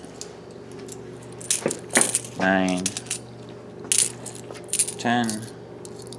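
Quarters clinking as they are passed one at a time from one hand into a palmful of coins, a scatter of sharp metallic clicks. A short voice sound comes twice, about two and a half and five seconds in, in with the counting.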